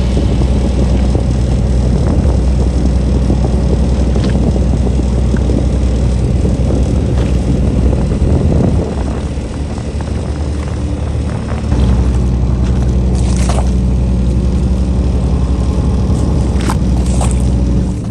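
Fishing boat's engine running steadily, with water noise around the hull. The engine eases off about halfway through and picks up again a few seconds later. A few sharp clicks or knocks come near the end.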